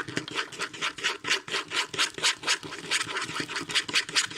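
Slime being mixed quickly: a fast, even run of rubbing, scraping strokes, about five a second.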